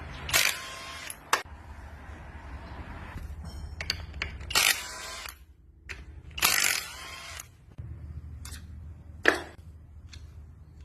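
Hand-tool work: three short rasping bursts, each about half a second long, and several sharp metallic clicks, one loud one near the end, over a low steady hum.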